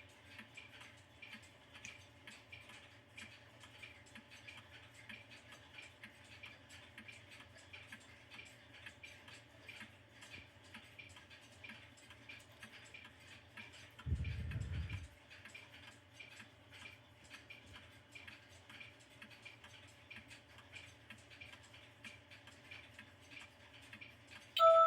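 Rhythm Remington II mantel clock ticking steadily. About fourteen seconds in there is a brief low thump lasting about a second, and at the very end the clock's chime melody begins.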